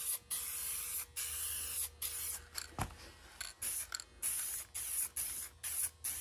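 Aerosol spray can of palomino interior dye spraying in a quick string of short hissing bursts, about two a second, with brief gaps between them. A single knock about three seconds in.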